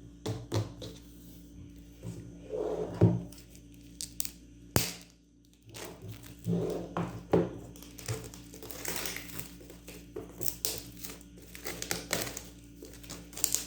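Chocolate gift packaging being handled and unwrapped: crinkling and rustling of wrapper and box, with scattered taps and knocks, the sharpest about three seconds in and again near five seconds.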